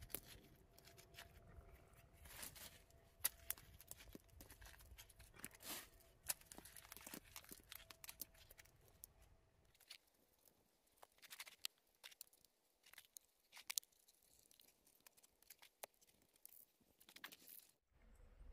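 Rough stones being pressed and set into wet mud mortar by gloved hands: faint, scattered scrapes, crunches and small knocks of stone on stone.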